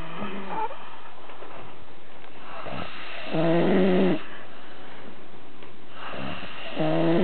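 A sleeping person snoring: two long, pitched snores a few seconds apart, each led in by a rough breath, with a weaker snore right at the start.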